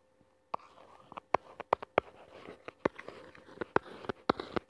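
Light taps and clicks on a phone touchscreen as a word is handwritten on it, coming in a quick irregular series.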